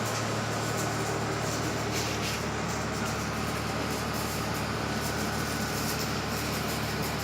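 Steady low machine hum with a constant noisy background, unchanging throughout.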